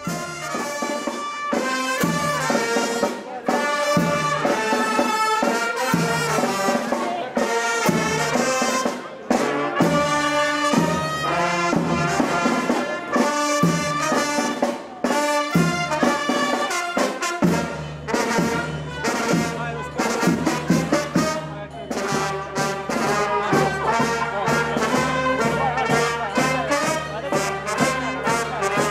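Brass band music, trumpets and trombones playing a lively tune over a steady beat, with a sustained low bass coming in past the middle.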